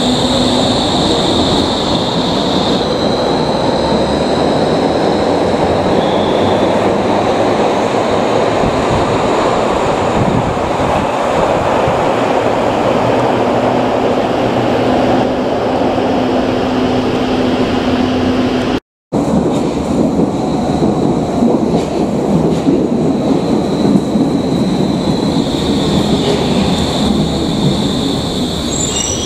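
Berlin U-Bahn IK-series small-profile train running on the rails: a steady rumble of wheels and running gear, with a high steady whine that fades about three seconds in and comes back near the end. The sound drops out for a moment about nineteen seconds in.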